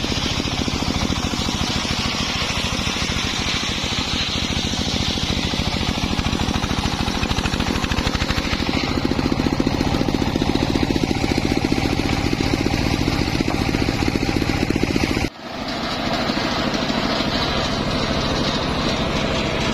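Engine driving a homemade circular saw rig, running steadily with a rapid, even pulsing. It breaks off abruptly for a moment about fifteen seconds in, then carries on.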